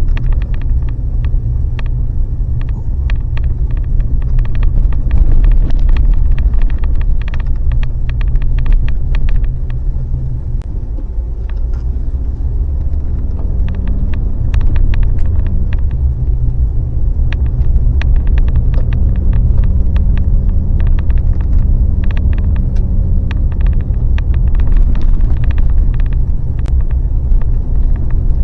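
Road noise inside a moving vehicle: a steady low rumble with many sharp clicks and rattles scattered through it, and a faint engine or drivetrain tone about halfway through.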